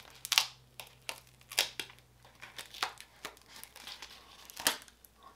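Duct tape being peeled off the edges of a stretched canvas in a series of short crackling rips, the loudest about half a second in and near the end.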